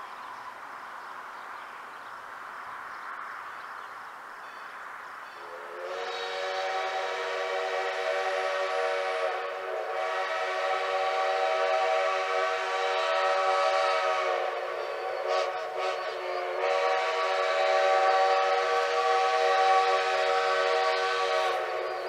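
Steam locomotive No. 11's chime whistle blowing a chord of several notes: after a few seconds of the locomotive's low running sound, a long blast of about nine seconds, a short note, then another long blast. This is the signal for the grade crossing it is approaching.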